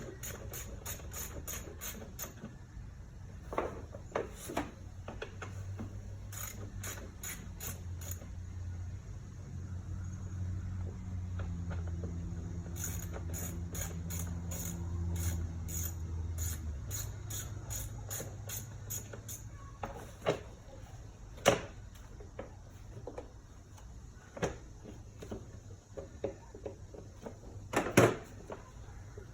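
Small ratchet clicking in quick runs of even clicks while bolts on a plastic engine cover are worked, with a few separate knocks of tools or plastic later on. A low hum rises and falls underneath for several seconds in the middle.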